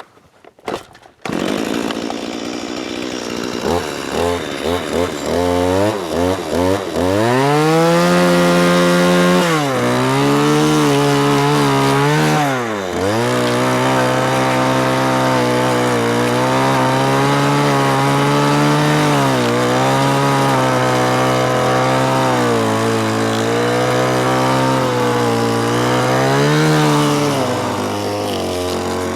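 Stihl chainsaw fitted with a debarker attachment: the engine is blipped a few times, then held at high revs, its pitch sagging and recovering as the rotating cutter head strips bark from a log.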